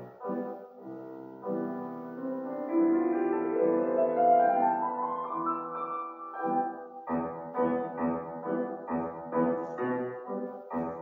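Solo Steinway grand piano playing classical music: a few short detached chords, then a sustained passage climbing steadily in pitch, then short repeated chords about three a second from about seven seconds in.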